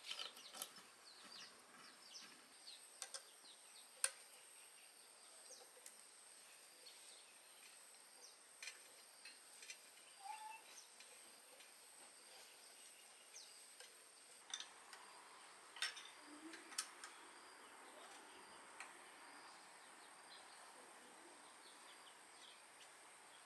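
Near silence: faint bird chirps and a few light knocks over a steady faint high-pitched tone.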